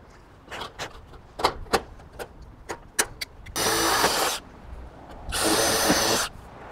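Milwaukee cordless impact driver run in two short bursts, about a second apart, driving fasteners into a steel barge capping flashing. Before it come a few sharp clicks and knocks.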